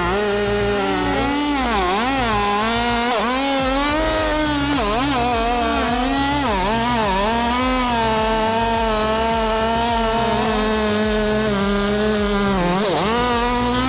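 Two-stroke chainsaw cutting into a large cedar trunk, running at high revs. Its pitch dips and recovers again and again as the chain bogs down in the cut.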